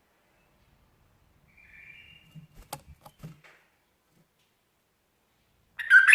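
Bulbul calling: a short soft call about two seconds in and a few sharp clicks, then a loud burst of song that starts near the end.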